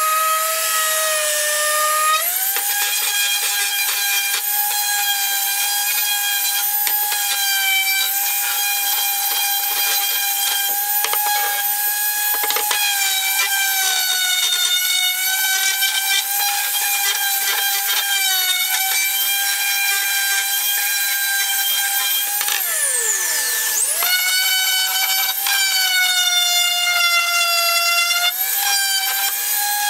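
HiKOKI random orbital sander running against a solid cedar board: a steady motor whine over the rasp of sandpaper, its pitch sagging and recovering as pressure on the pad changes. About two-thirds of the way through, the whine drops sharply in pitch and climbs straight back up to speed.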